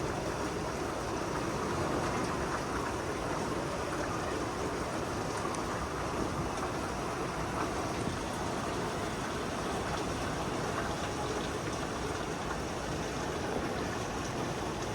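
Heavy rain falling steadily, an even rushing hiss with a few faint drop ticks.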